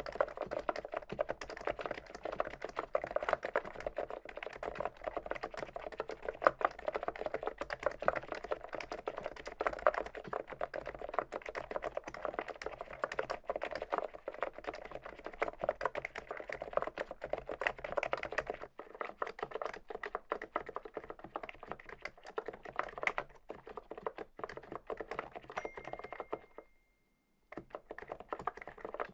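Typing on an Archon E1 PRO contactless gaming keyboard: a fast, continuous run of key clacks. About two thirds of the way through the typing turns sparser, and it briefly cuts out near the end.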